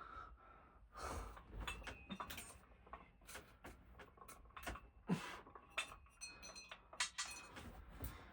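Scattered light knocks and metallic clinks from a heavy ceiling fan motor and its mounting hardware being handled and fitted onto the ceiling mount.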